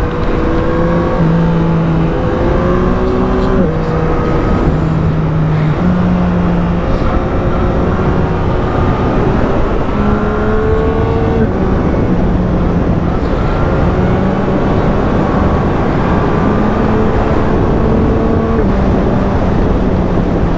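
Yamaha MT-09's 890 cc inline three-cylinder engine pulling under way, its pitch climbing and falling and stepping abruptly at several gear changes, with wind rush.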